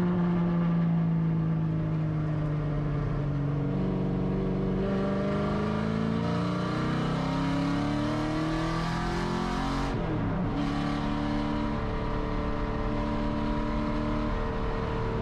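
Camaro Z/28.R race car's 7.0-litre LS7 V8 heard from inside the cockpit at speed. The engine note eases off at first, then climbs steadily under acceleration. About ten seconds in it drops sharply, as the driver upshifts the six-speed manual gearbox, and it pulls on in the next gear.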